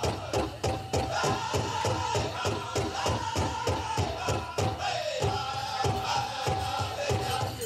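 Pow wow drum group singing a chicken dance song: men's voices in a high chant over a fast, steady beat on a large pow wow drum, about four beats a second. About five seconds in the voices slide down and then hold a high note.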